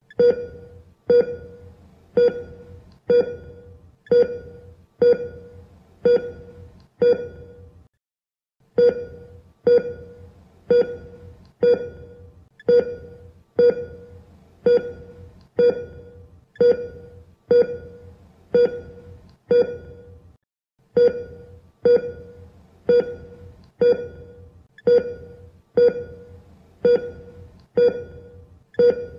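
Operating-room patient monitor beeping at the same pitch, about two beeps a second, the pulse tone that sounds with each heartbeat. It cuts out briefly twice.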